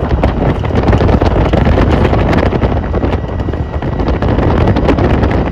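Wind buffeting the microphone in a moving open-sided auto-rickshaw, over the low drone and rattling of the vehicle.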